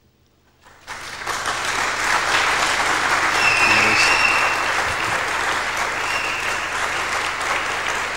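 Concert audience applauding: clapping breaks out about a second in after near silence, swells within a second and then holds steady.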